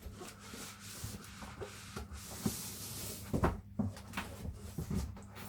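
Cardboard packaging being handled: cardboard rubbing and scraping against cardboard, then a few knocks about three and a half seconds in.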